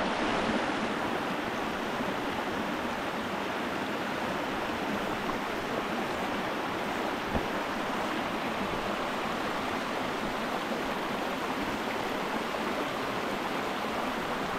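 Mountain creek water rushing steadily.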